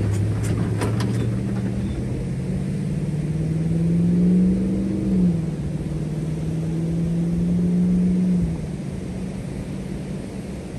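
Ram Power Wagon pickup's V8 pulling away across soft sand with a trailer in tow: the engine note rises, drops once just after five seconds in as it changes gear, rises again, then fades as the truck drives off. A few light clicks near the start.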